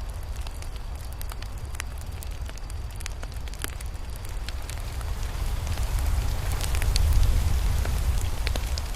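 Campfire burning, with scattered sharp crackles and pops from the wood over a steady low rumble that swells louder about six to eight seconds in.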